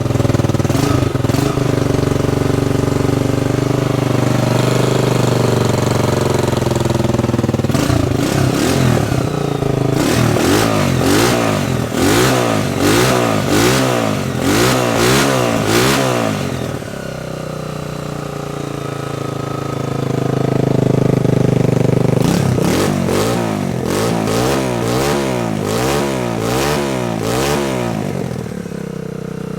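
A 150cc dirt bike engine running, coming in suddenly right at the start. It is revved in repeated quick throttle blips in two spells, about ten seconds in and again over the last third, with steadier running between.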